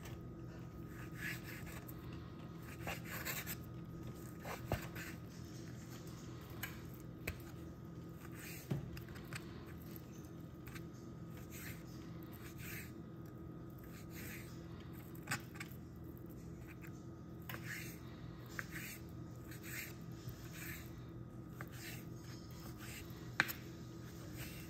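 Knife slicing raw beef into strips on a bamboo cutting board: irregular short scrapes and taps of the blade against the board, with one sharper knock near the end, over a steady low hum.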